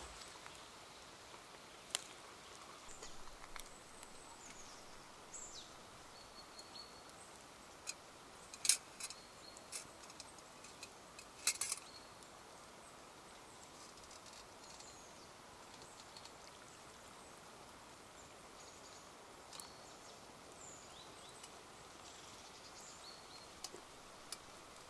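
Forest ambience: a steady soft hiss with small birds calling in short high chirps and whistles throughout, and a few sharp clicks or snaps, the loudest about nine and twelve seconds in.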